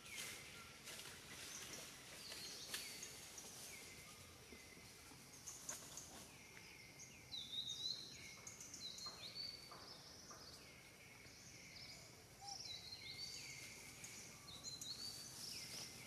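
Faint outdoor wildlife ambience: high chirping calls repeat about once a second, each sweeping down in pitch, with brief higher hooked notes in the middle part.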